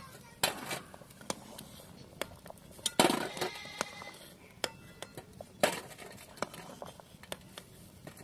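A metal spatula clinking and scraping against an aluminium pot and a steel plate as boiled eggs are lifted out of the water and set down one by one. There is a loud metallic clatter with a brief ring about three seconds in.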